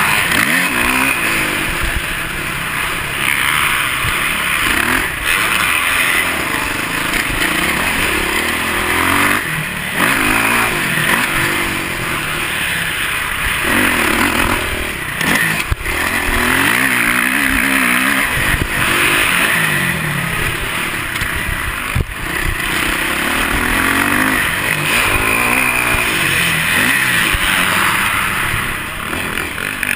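Suzuki motocross bike engine revving hard and easing off over and over, its pitch rising and falling as the rider accelerates around the dirt track, heard close up from a rider-mounted camera.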